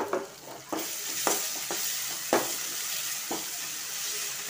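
Ginger-garlic paste and shallots sizzling in hot oil while a perforated metal ladle stirs them, scraping against the metal pan. The sizzle swells about a second in, and there are scrapes roughly once a second, one louder scrape partway through.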